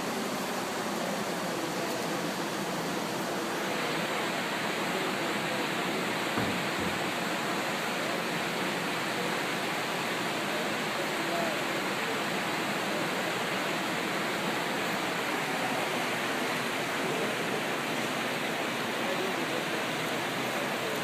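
Rushing floodwater from a swollen river or creek, a steady noise. There is a brief low thump about six seconds in.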